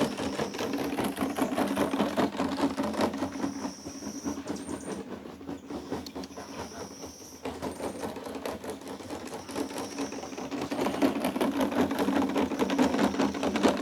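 A rapid, continuous clattering rattle from a noise-making object shaken or run close to a horse. It softens in the middle and grows louder again near the end.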